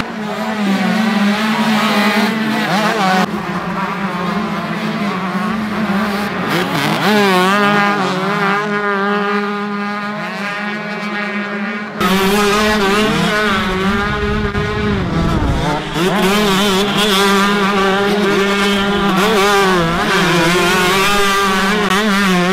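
125cc two-stroke motocross bike engines racing, revving up and down over and over as riders work the throttle.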